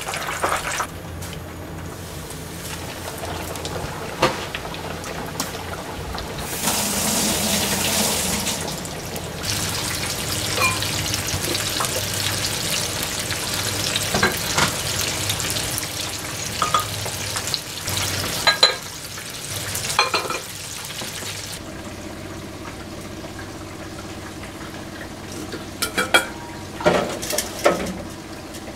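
Hot oil sizzling and bubbling in a frying pan as a floured chicken breast deep-fries, with scattered clicks and clinks of kitchenware. A handful of sharper clinks come near the end.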